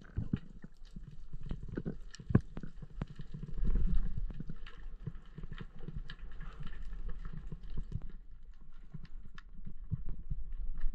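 Underwater sound on a rocky reef: irregular sharp clicks and crackles over a steady low rumble, with a louder low surge about four seconds in.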